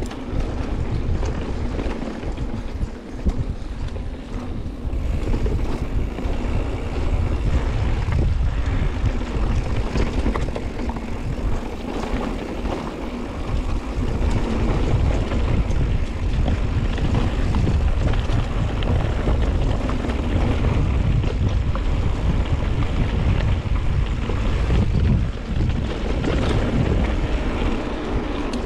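Wind rushing over the microphone and knobby tyres rolling over a dirt trail as a mountain bike is ridden along at speed, with short clicks and clatter from the bike over bumps.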